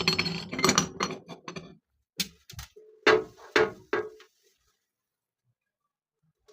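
Household objects clattering and knocking as they are handled: a busy run of clinks and knocks in the first two seconds, then a few single knocks, some ringing briefly, before it goes quiet.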